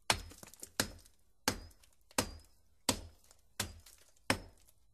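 Steady rhythmic blows of a hand tool striking hard material, about one every 0.7 seconds, each with a short metallic ring.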